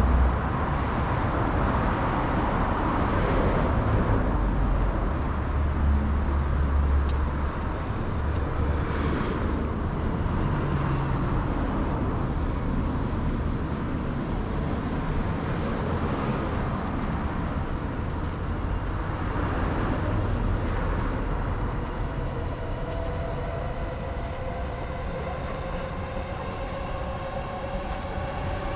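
Steady low rumble of vehicle traffic on a city street, with a faint pitched sound coming in near the end.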